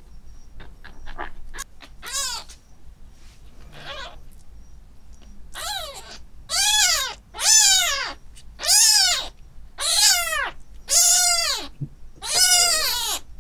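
A kitten about two weeks old crying in repeated mews while its face is wiped with a tissue, each cry rising and then falling in pitch. The cries grow loud and come about once a second from about halfway through. A few soft clicks come near the start.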